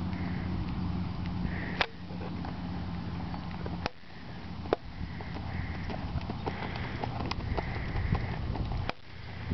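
Hoofbeats of a ridden horse on the dirt footing of an arena, heard as scattered knocks over a steady low hum in the first few seconds. The sound breaks off abruptly about two, four and nine seconds in.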